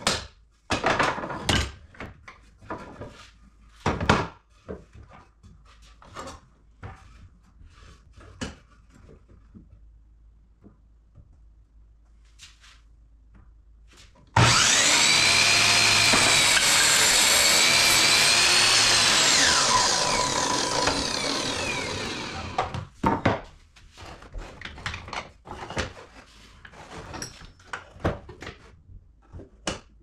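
Sliding compound miter saw switched on about halfway through, running and cutting through a wooden block with a loud whine for about five seconds, then winding down over a couple of seconds as the blade coasts to a stop. Before and after it, knocks and clatter of wood pieces being set on the saw table and bench.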